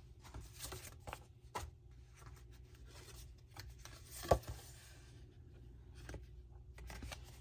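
Cardstock greeting cards being handled on a tabletop: light paper rustling and rubbing, with one sharper tap about four seconds in.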